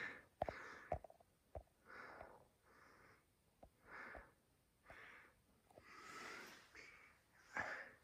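Harbor Breeze Saratoga ceiling fan running with a bad capacitor, heard faintly: soft air swishes about once a second with a few light clicks.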